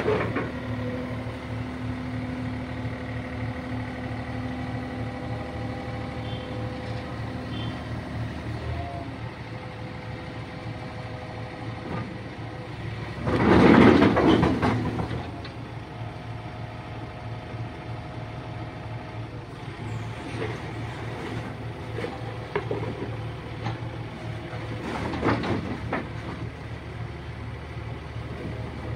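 Yanmar mini excavator's diesel engine running steadily as the machine climbs onto a tipper lorry's bed, with a steady whine that stops about a third of the way in. About halfway through comes a loud burst of noise lasting a couple of seconds as the tracked machine moves onto the lorry bed, and a smaller one later.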